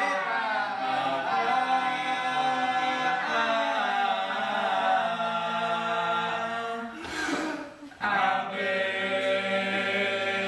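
Teenage stage cast singing long held notes together in harmony, with a brief break about seven seconds in before the chord comes back.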